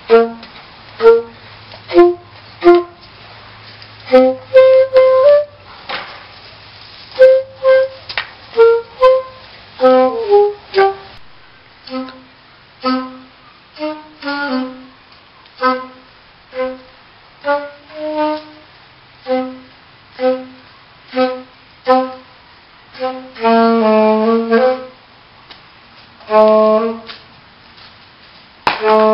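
Background music: a tune of short, separate notes on a reed-like instrument, about one or two a second, with a longer run of notes near the end.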